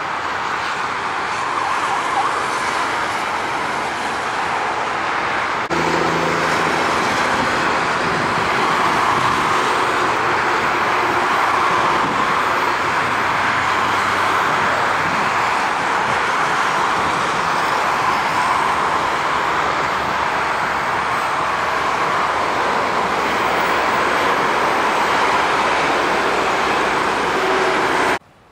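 Boeing 747 freighter's four jet engines running as the airliner rolls out and taxis after landing, a steady loud whine and rush. About six seconds in it gets louder, with a low hum joining in, and it cuts off suddenly near the end.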